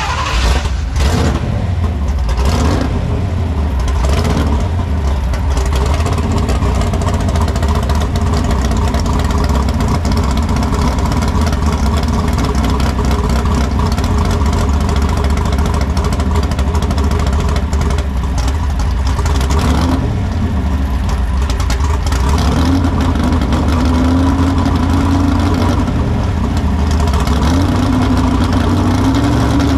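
Pro Stock 4x4 pulling truck's engine revved a few times in the first few seconds, then idling steadily and loud with a deep rumble.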